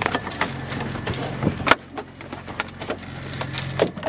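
Freshly landed coho salmon flopping in a landing net on a boat's fibreglass cockpit floor: a run of irregular slaps and knocks, the loudest about halfway through, over a steady low engine hum.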